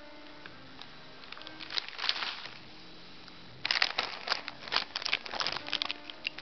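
Potato chip bag crinkling as it is handled and unclipped, in scattered crackles about a second in, then louder, denser crinkling from about three and a half seconds on.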